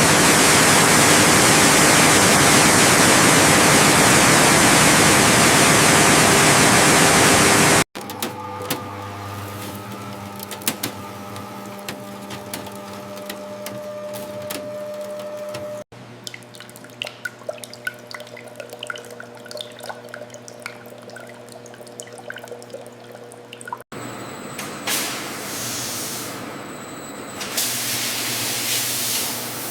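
Processing-line sounds in four abrupt sections: a loud rushing water spray, then machinery humming with scattered clicks and clatter for about sixteen seconds, then hissing spray that swells in gusts near the end.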